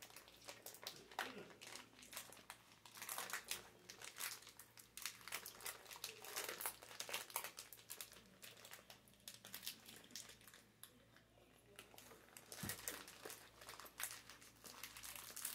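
Cadbury Mr. Big candy bar's plastic wrapper crinkling faintly and irregularly as it is handled, with a quieter lull about ten seconds in.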